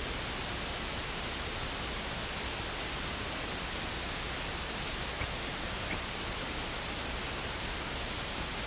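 Steady, even electronic hiss with nothing else in it: the SJCAM SJ7 Star action camera's audio track recording only noise instead of sound, a fault the owner says a firmware update did not cure. The hiss cuts off suddenly near the end.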